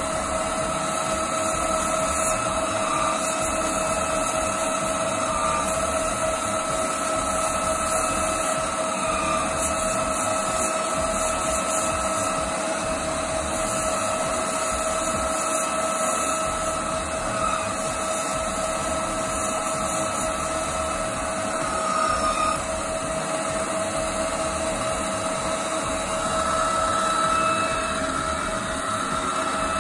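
Metal-turning centre lathe running at about 2000 rpm with a steady whine, its tool taking a slow, light finishing cut along a spinning brass bar.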